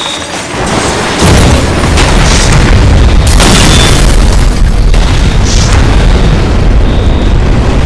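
Film explosion sound effects: a loud boom breaks in about a second in and turns into a continuous deep rumble, with a second, brighter blast about three seconds in.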